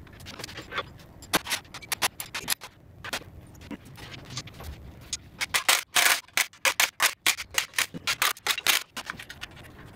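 Hand tools clicking and clanking on a 948cc BMC A-Series engine block while it is being dismantled. The sharp clicks and knocks are irregular at first and come fast and dense through the second half.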